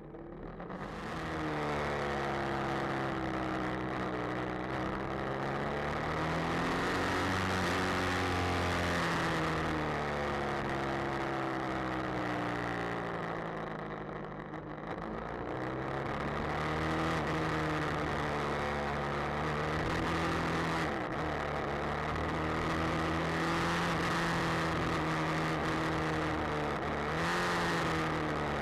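BMW F800R motorcycle's 798 cc parallel-twin engine pulling away from a stop and accelerating through the gears, its pitch climbing and falling several times as it shifts and eases off about halfway, with wind noise over the mounted camera's microphone.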